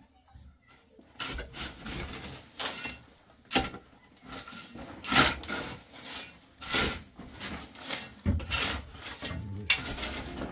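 Metal shovel scraping and scooping stony soil, backfilling a trench, in repeated rough strokes about once a second that start about a second in.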